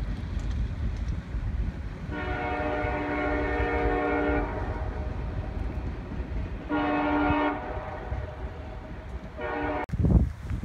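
CSX freight locomotive's air horn sounding a multi-note chord for a grade crossing. There is a long blast about two seconds in, a short one near the middle and another brief one just before the end, over a steady low rumble.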